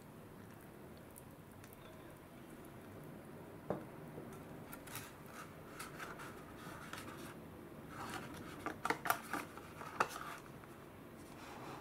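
Hot water trickling from a stainless kettle into a cup of instant udon, then a knock and a string of paper-and-foil crinkles and sharp little plastic clicks as the cup's lid is pressed shut and a small plastic figure is set on top of it. The clicks come thickest and loudest near the end.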